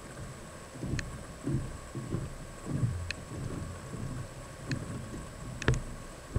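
Footsteps in sandals on a wooden plank boardwalk, a step about every two-thirds of a second, with a few light clicks among them and two sharp knocks near the end as the walker passes close by.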